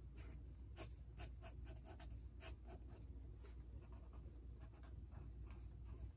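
Ink pen strokes scratching across sketchbook paper during freehand inking: about ten quick, short strokes at an irregular pace, faint over a low steady room hum.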